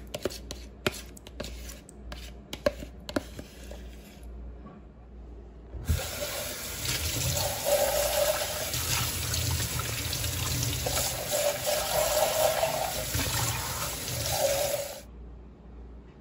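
A metal spoon scraping and clicking against the inside of a plastic yogurt tub, a quick series of sharp clicks. Then, from about six seconds in, a kitchen tap runs into the plastic tub held in a stainless steel sink as it is rinsed out, and it cuts off sharply near the end.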